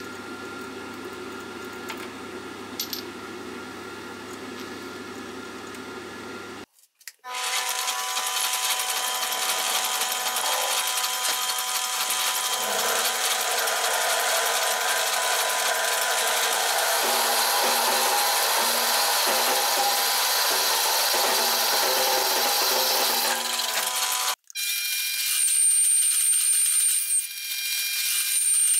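Metal lathe drilling into a spinning metal workpiece: a loud, steady cutting noise with the machine's hum. About a second before the end of the drilling it cuts off suddenly. The lathe then turns again with a boring bar cutting the inside of the bore, and a high squeal comes twice. The first six seconds hold a quieter steady hum.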